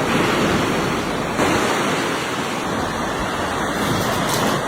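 A loud, steady rushing noise with no clear pitch, its texture shifting slightly about a second and a half in.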